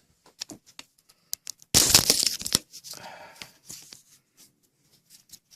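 Handling noises at a workbench: scattered light clicks and taps, with one loud rustling, scraping burst of under a second about two seconds in.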